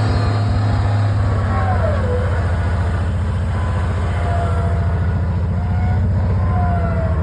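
A large engine running steadily under load with a deep, even pulse, while a fainter whine slides up and down in pitch over it.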